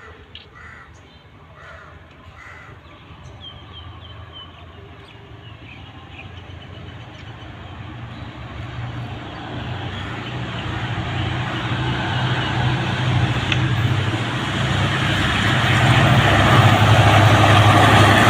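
Diesel locomotive approaching at the head of a container freight train, its low engine hum and the rolling noise of the train growing steadily louder until it is alongside. Crows caw a few times in the first seconds.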